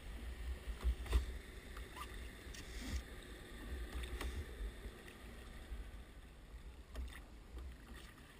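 Oars being worked on a rowing boat in the Venetian standing style: a few sharp knocks from the oars and water sounds from the strokes, over an uneven low rumble.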